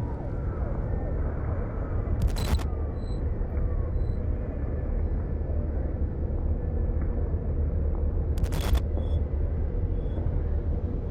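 A steady low rumble, broken twice by a short burst of rapid sharp clicks, about two and a half seconds in and again about eight and a half seconds in.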